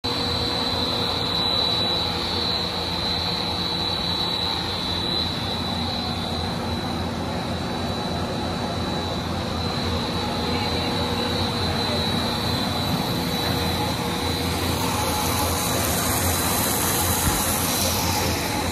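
Pet food extruder production line running: a continuous mechanical drone with a steady high whine that weakens past the middle.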